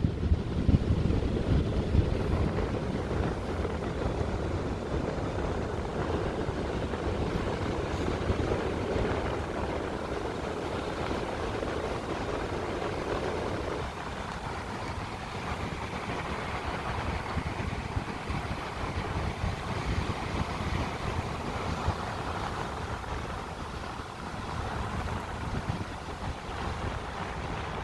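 Wind buffeting the microphone over a steady rushing noise, easing a little about halfway through.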